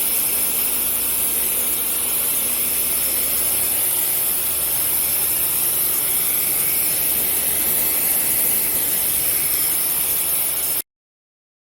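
Pressure washer spraying: a steady hiss of the water jet over the hum of the machine's motor, cutting off suddenly near the end.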